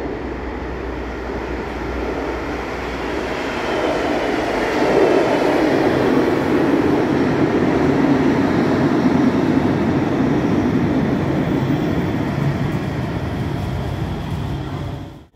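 Cologne KVB Stadtbahn light-rail train pulling into an underground platform. Its wheel-on-rail running noise builds as it comes out of the tunnel, with a faint high squeal, is loudest as the cars run past, then eases as it slows to a stop. The sound cuts off abruptly at the end.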